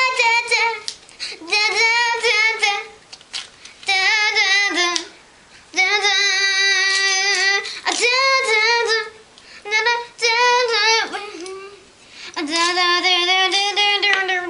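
A high voice singing long, wavering held notes in short phrases with pauses between, with no clear words.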